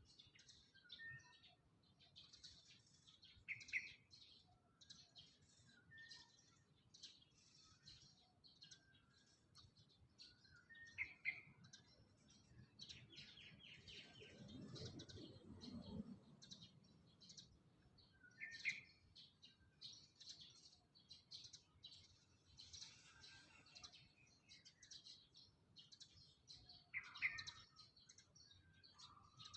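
Faint birdsong, with many small birds chirping and twittering. A louder short call repeats about every seven or eight seconds, and a low rumble rises and fades near the middle.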